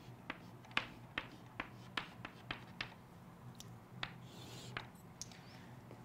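Chalk on a chalkboard: a series of short, faint taps and scrapes as dashed lines are drawn, about two or three ticks a second at first, then sparser.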